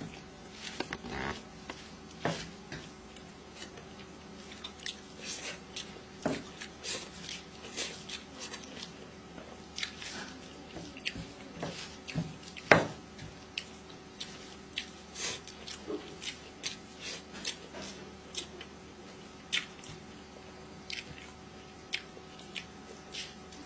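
Close-up eating sounds: wet smacking and chewing as rice and curry are eaten by hand, with fingers squishing the rice on the plate. Short irregular clicks run throughout, one louder about halfway through.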